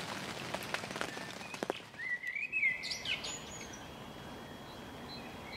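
Rain falling on shallow floodwater, a steady patter with scattered drips, then a small bird chirping a short, warbling run of high calls about two seconds in, with faint further chirps near the end.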